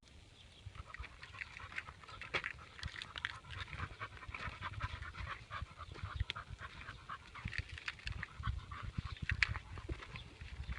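A dog panting, with many small irregular clicks and low bumps.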